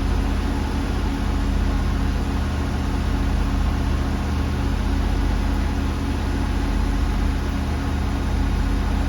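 Blue Bird school bus engine held at a steady raised idle of about 2,000 RPM, running evenly. The engine is kept up so the air compressor can refill the drained air-brake tanks toward 115 PSI.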